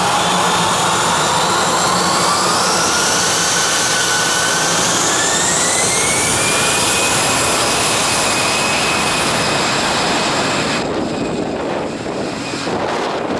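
Airbus A320 jet engines spooling up to takeoff thrust at the start of the takeoff roll: a loud roar with a whine that rises in pitch over about six seconds, then holds steady. Near the end the high whine fades and the sound turns gusty and uneven as the airliner pulls away.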